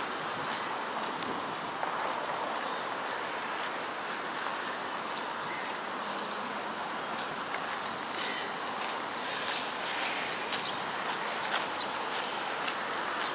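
Small birds chirping in short, high calls over a steady background noise, the chirps coming more often in the second half.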